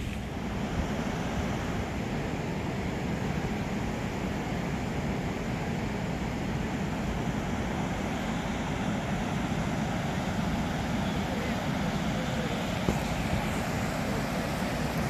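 Goðafoss waterfall rushing: a steady, even roar of falling water, heaviest in the low end, with a single brief tap about thirteen seconds in.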